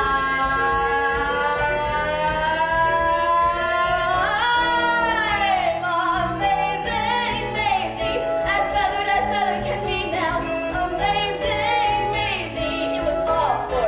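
A woman singing a show tune over instrumental accompaniment: a long held high note, a swoop up and back down about four seconds in, then quicker sung phrases.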